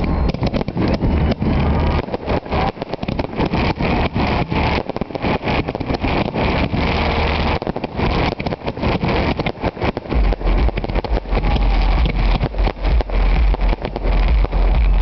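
Fireworks display going off in quick succession: dense popping and crackling over a steady low rumble, the rumble growing heavier about ten seconds in.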